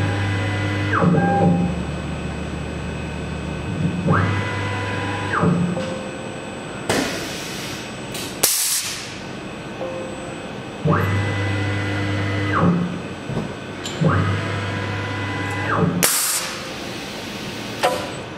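Skyfire SVM2 CNC mill running an automatic tool change: the axis drives whine up in pitch, hold and wind down as the head moves several times, and short sharp hisses of compressed air come from the BT30 tool changer's drawbar releasing and seating the tool.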